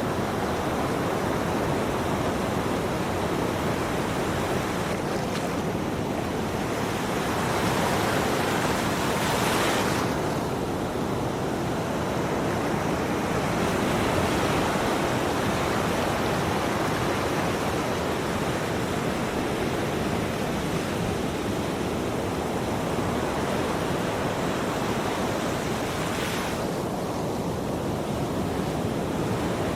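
Ocean surf: a continuous rush of waves washing in, swelling brighter as a wave breaks about a third of the way in and again near the end.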